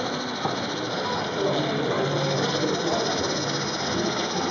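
Background chatter of voices in a hall, with the light mechanical running of a model steam locomotive and its goods wagons moving along the track.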